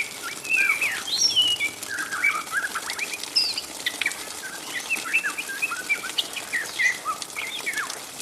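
Juvenile white-rumped shama (murai batu trotol) chattering in the 'ngriwik' style: a rapid, continuous jumble of short chirps, slurred whistles and quick up-and-down notes, the rambling song of a young bird still learning its song.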